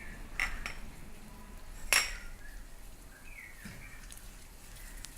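Metal utensil clinking against a small metal pan a few times, with one sharp, ringing clink about two seconds in, during the mustard-seed tempering of sambar in hot oil.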